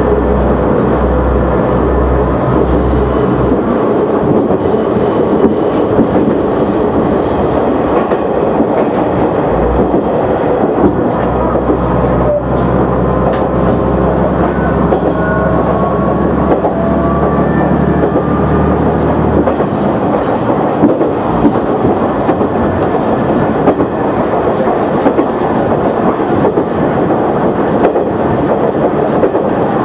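KiHa 100 diesel railcar running on the line, heard from the driver's cab: engine drone and the clickety-clack of wheels over the rail joints. The low engine drone falls away about two-thirds of the way through, leaving mainly wheel and rail noise.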